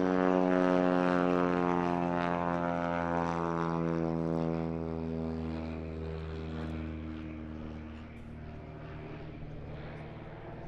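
Piper Pawnee tow plane's piston engine and propeller droning in flight. The drone is loudest about a second in, then drops slightly in pitch and fades as the plane flies away.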